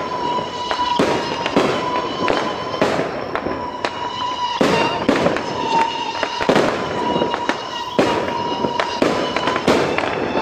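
Aerial firework shells bursting overhead: an irregular run of sharp bangs, about one or two a second, with crackling between them.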